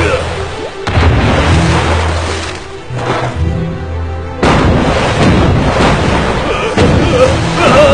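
Film soundtrack music with deep booming rumbles in the first half, turning into a dense, louder wash of sound about halfway through, with a wavering high tone near the end.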